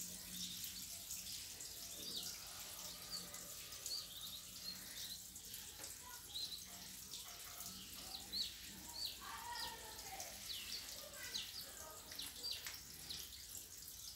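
Small birds chirping on and off, short high chirps that drop in pitch, over faint background noise and a faint low hum.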